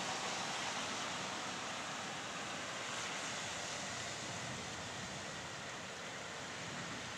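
Steady hiss of rain falling as a thunderstorm ends, even and without thunder, easing slightly over the few seconds.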